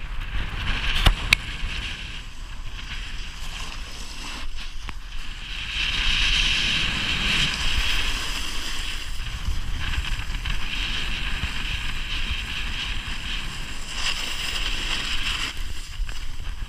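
Snowboard sliding and carving over snow, a steady scraping hiss that grows louder about six seconds in, with wind rumbling on the camera's microphone. A couple of sharp knocks about a second in.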